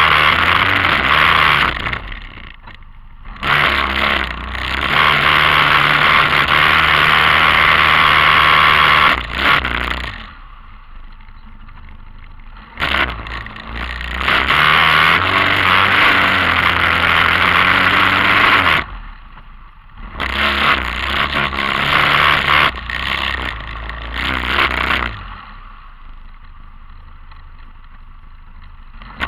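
TGB 550 quad's single-cylinder four-stroke engine running under throttle through a muddy rut, with its tyres working through mud and water. The throttle is let off four times, and each time the engine drops back to a low idle before picking up again. The last drop comes near the end.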